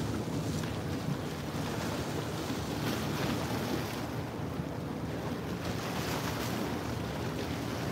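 Wind on the microphone and small waves washing against rocks, over a steady low hum.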